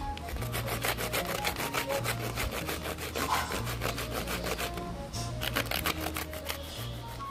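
Peeled pointed gourd (potol) rubbed on a flat stainless-steel hand grater: a quick rasping scrape repeated several times a second. Soft background music plays under it.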